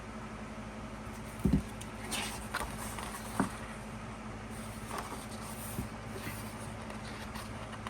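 Pages of a photo book being handled and turned: faint paper rustles and light taps, with a dull bump about one and a half seconds in.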